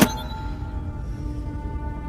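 Background soundtrack music: a sustained drone with a steady high tone over a low rumble, opening with a sharp hit.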